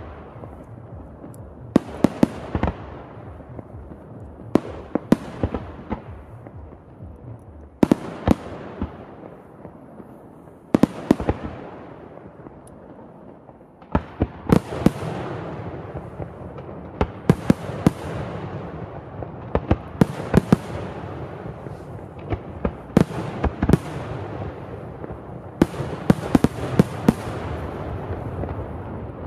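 Aerial firework shells bursting in volleys: sharp bangs in clusters every two or three seconds, each trailing off in a long echo. From about halfway on the bursts come thicker and the echoes run together.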